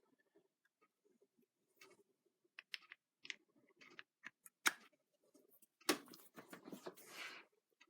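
Light clicks and clinks of small metal hydraulic-pump parts being handled and fitted together, with a brief scraping rattle near the end.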